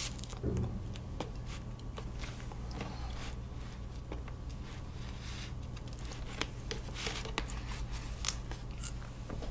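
Cake knife sawing down through a whipped-cream sponge cake, with small scattered scrapes and clicks of the blade against the frosting and cake board, over a steady low hum.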